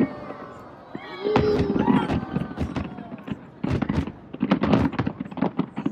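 Aerial fireworks bursting: a rapid run of sharp bangs and crackles, thickest in the second half.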